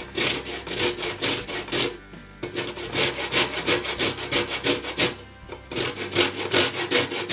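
Lemon rubbed back and forth over the metal face of a handheld fine grater, grating off the zest. Rapid rasping strokes, about four or five a second, come in three runs with short pauses about two seconds in and again about five and a half seconds in.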